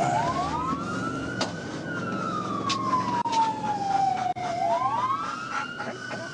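Police car siren on wail, its pitch rising quickly and falling slowly, with a second rise about two thirds of the way through. Engine and road noise from the pursuing cruiser sit underneath.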